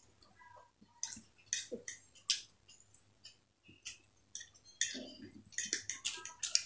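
Metal forks clicking and scraping on plates as two people wind and shovel up egg chow mein, in quick irregular clusters with eating noises between them.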